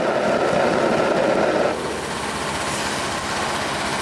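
Thermite-weld preheating torch burning steadily against the mold, a continuous rushing. It is fuller for the first couple of seconds, then eases slightly and runs on evenly.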